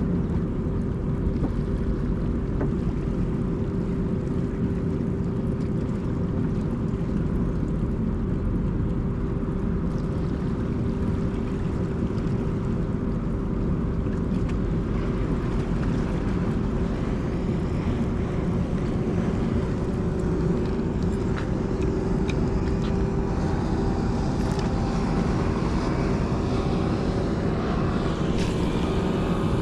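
Motorboat engine running steadily, with more of its tones coming in over the second half as the boat draws nearer, over a constant low rush of wind and water.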